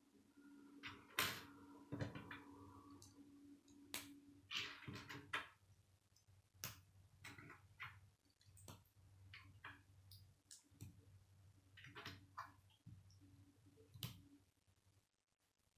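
Plastic K'nex connectors and rods clicking and knocking as they are handled and snapped together, in scattered irregular clicks, a few sharper than the rest, over a faint steady low hum.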